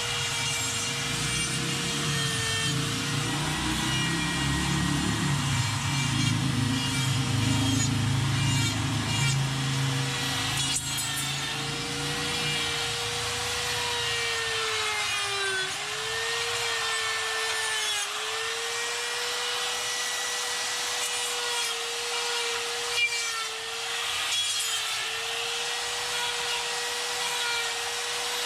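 High-speed die grinder with a carving burr running and cutting into wood: a steady motor whine with a rasping grind, its pitch dipping each time the burr is pressed into the wood.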